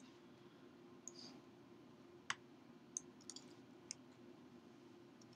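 Near silence with a handful of faint computer mouse clicks scattered over a few seconds, over a low steady hum.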